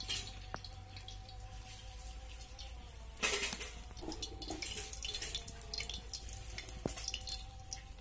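Small wet handling sounds and light clicks as turmeric-coated raw fish are moved around on a steel plate, with a brief loud rustling burst about three seconds in. A faint steady tone sits underneath.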